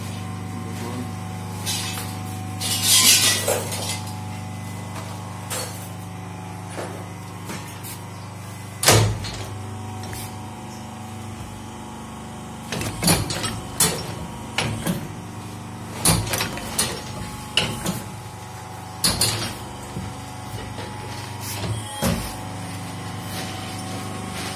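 Hydraulic injection-moulding machine for water-gallon caps running: a steady hum from its pump, two bursts of hissing near the start, and a series of metal clanks and knocks, the loudest about a third of the way in.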